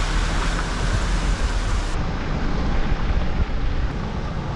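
Wind buffeting a camera microphone mounted on the outside of a slowly moving car, over a steady low rumble of the car and its tyres on the road. The higher hiss thins out abruptly about two seconds in.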